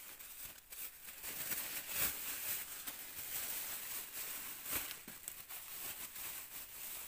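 Thin plastic bag rustling and crinkling as gloved hands pull it open and work through it, with a few sharp clicks along the way.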